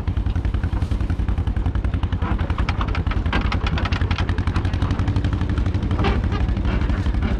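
Farm tractor's engine running with a fast, even chugging, with some rattling over it.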